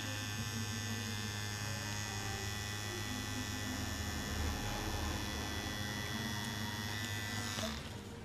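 Cartridge tattoo machine running with a steady electric hum as the needle works ink into skin, cutting off near the end.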